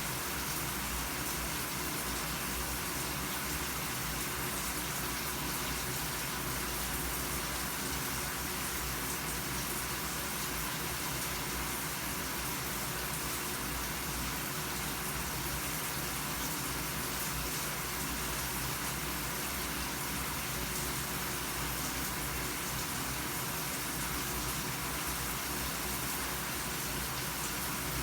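Shower running steadily: a continuous even hiss of water spray falling.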